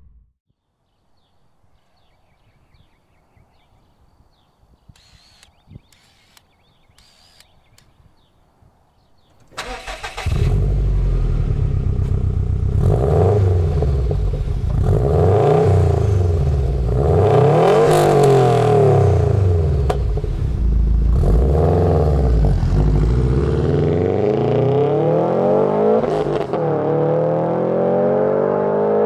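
Subaru GR-chassis hatchback's turbocharged flat-four engine, breathing through a titanium cat-back exhaust, starting about a third of the way in after a quiet stretch. It is revved up and down several times, then the car pulls away accelerating, its pitch rising.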